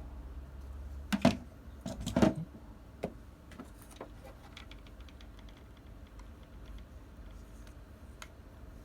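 Hand-handling noises of small plastic parts: two louder knocks about a second and two seconds in, then a few faint light clicks and ticks.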